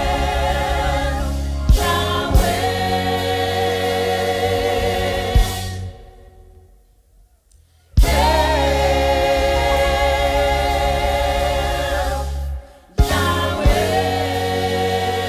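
Gospel choir singing with a sustained low accompaniment. The music breaks off for about two seconds in the middle, then comes back in with a knock, and briefly cuts out once more near the end.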